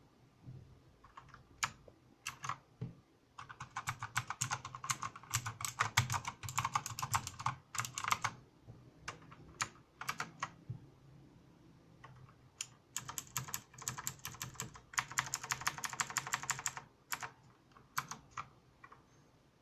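Typing on a mechanical keyboard with clicky blue switches: fast runs of crisp keystroke clicks in two bursts of several seconds, with single keypresses and short pauses between them.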